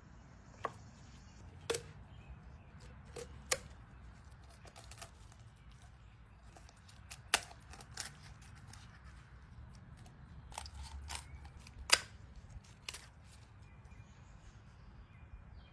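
Kitchen shears snipping through the bones of a raw whole chicken. They make a series of sharp, irregularly spaced crunching snips, the loudest about seven and twelve seconds in.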